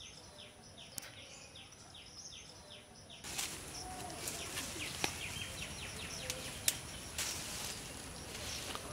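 Outdoor rural ambience with birds chirping, first in a quick series of short falling notes. About three seconds in the background gets louder, with scattered clicks and rustling of leafy lychee branches being pulled.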